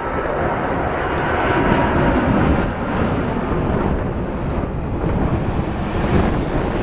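Airbus Beluga XL's two Rolls-Royce Trent 700 turbofans on landing approach as the aircraft passes low by: loud, steady jet noise with a faint whine in it, at its loudest about two seconds in.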